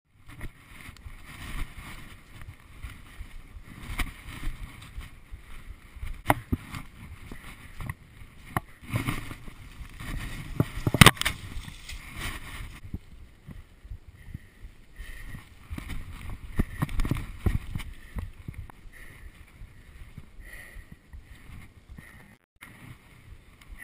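Rustling, scraping and knocking of a GoPro camera being carried while a person clambers through undergrowth and over rocks, brushing and grabbing branches. It comes in uneven bursts with a few sharp knocks; the loudest is about eleven seconds in, and it is quieter in the second half.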